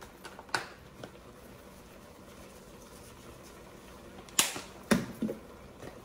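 Kitchen handling noise: a faint tap about half a second in, then a quick cluster of sharp clicks and knocks about four to five seconds in as spice containers are handled and a glass spice jar is set down on the countertop.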